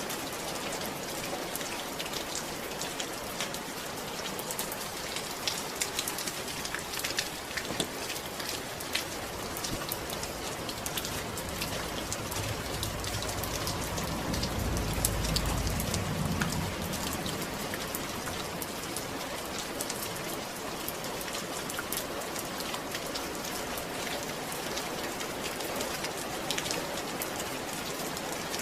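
Steady rain falling, an even hiss with many individual drops ticking sharply through it. About halfway through, a low rumble swells for a few seconds and fades.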